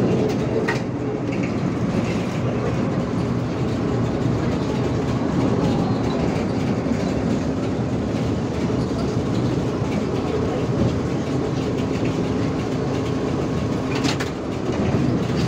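Trolleybus driving along a city street, heard from inside near the driver's cab: steady running noise of tyres and body with a faint hum that shifts lower in pitch partway through, and a couple of short clicks.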